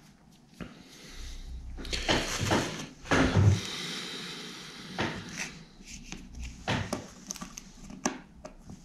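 Close-up handling of a small tape-recorder toggle switch and a thin metal pin: a scraping stretch a couple of seconds in and a few small knocks and clicks, as the drilled-out switch rivets are worked on by hand.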